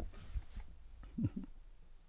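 A hiker walking downhill on a rocky mountain trail, with scattered low footfall thuds and breathing. A short falling grunt comes a little over a second in.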